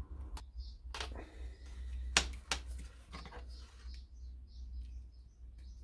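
Several light clicks and taps, the sharpest about two seconds in, from crocodile clips and leads being handled while the electrodes are set up, over a low steady hum.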